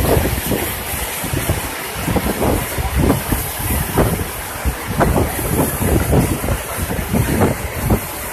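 Canal water gushing out of a large round concrete outlet: a loud, continuous rush of falling water, with irregular low surges as it churns.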